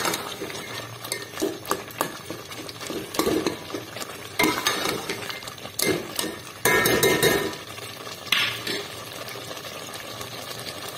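A metal ladle mashing and stirring carrots boiled soft in milk in a metal pot, with irregular knocks and scrapes against the pot; the loudest stretch comes about seven seconds in. This is the carrots being mashed for gajar ka halwa.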